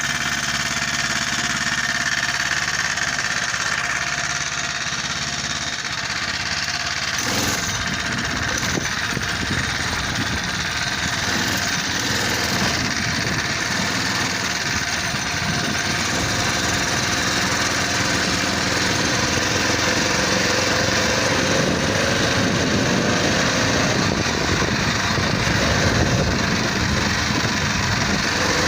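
Predator 79cc single-cylinder four-stroke engine on a motorized bicycle running steadily, turning rougher in its low rumble about seven seconds in, with the pitch climbing gradually in the second half as it picks up speed.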